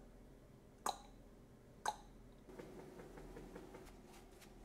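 Two sharp clicks about a second apart, then faint rustling of leather welding gloves as the hands shift and clasp.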